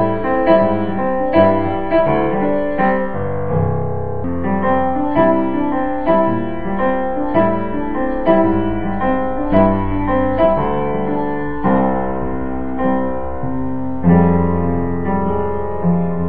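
Piano music playing a melody over low bass notes in a steady, even pulse.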